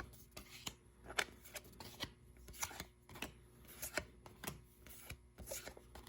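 Pokémon trading cards from a freshly opened booster pack handled by hand, one card slid off the stack after another: a string of short, irregular swishes and taps.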